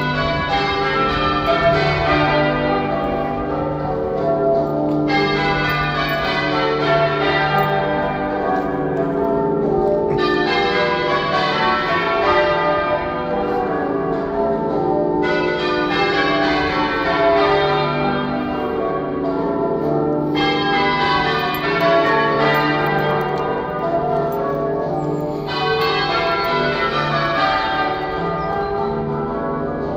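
Half-muffled church bells in change ringing. Every five seconds or so the rows alternate between open, bright strikes and dull, muffled ones, giving the echo-like effect of half-muffled ringing, the mourning peal rung for Remembrance.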